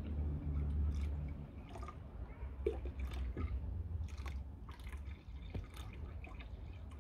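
Water poured from a plastic jug into a plastic pigeon drinker, trickling and dripping, with a few light knocks along the way.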